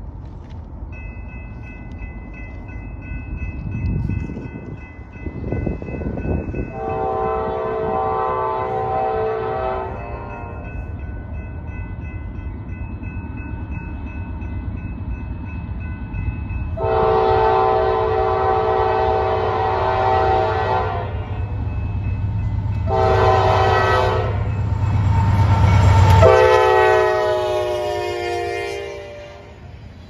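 Diesel freight locomotive's multi-note air horn sounding the grade-crossing signal, long, long, short, long, over the rising rumble of the approaching engines. The last long blast is the loudest and drops in pitch as the locomotive passes close by. The engine sound then falls away and the freight cars roll past.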